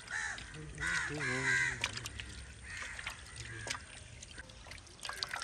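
Water sloshing and splashing as raw chicken pieces are rubbed and rinsed by hand in a pot of water, with birds calling several times over it, the longest run of calls about a second in.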